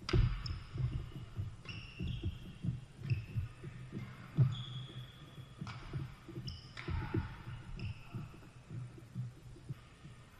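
Badminton doubles rally: sharp racket strikes on the shuttlecock about every second or so, the first a smash, over many low thuds of players' footsteps on the court and short squeaks of sneakers. The play dies down near the end.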